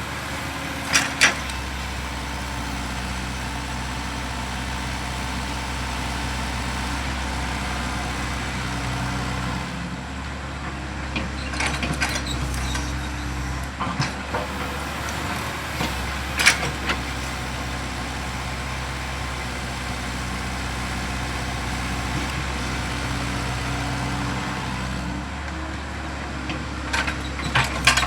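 Hydraulic excavator's diesel engine running steadily, its note shifting twice as the machine works, with sharp metallic clanks about a second in, around the middle and near the end.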